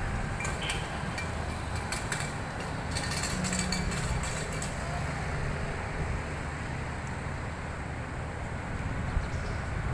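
Street ambience: a steady low rumble of road traffic, with a few faint clicks in the first few seconds.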